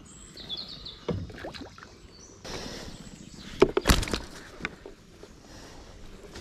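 Splashing and knocks from a freshly landed pike thrashing, with a cluster of loud sharp knocks a little before the middle and a few short high chirps near the start.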